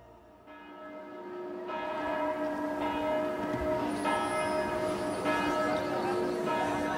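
Church bells ringing, a stroke about every second and a bit, each note hanging on as the next one sounds; they fade up over the first couple of seconds.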